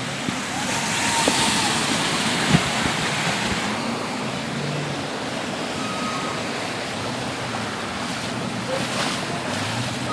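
Heavy rain and rushing flash-flood water in a street, a steady loud rush of noise that swells a little in the first seconds.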